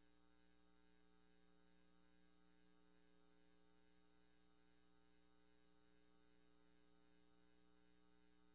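Near silence, with only a very faint steady electrical hum.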